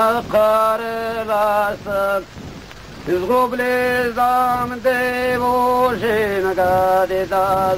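Male voices singing long held chords over a steady low drone note, with a brief quieter break about two seconds in before the chords resume.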